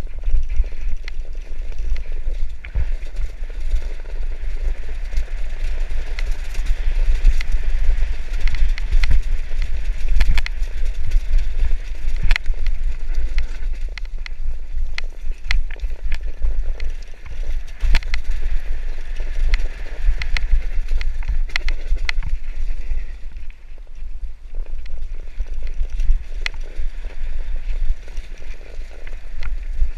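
Downhill mountain bike rattling over a loose, rocky trail at speed, with frequent sharp knocks as the wheels hit stones, all under heavy wind rumble on the action-camera microphone.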